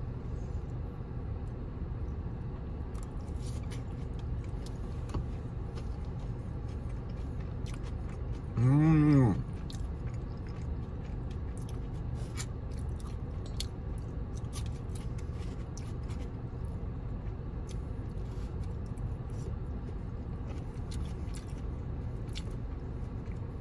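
Close-up chewing and biting of food, with scattered small mouth and chopstick clicks over a steady low hum. A hummed "mmm" comes about nine seconds in.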